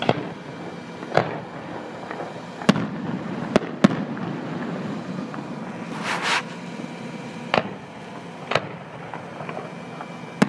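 Fireworks display: aerial shells bursting in about seven sharp booms at irregular intervals, with a short hissing burst about six seconds in.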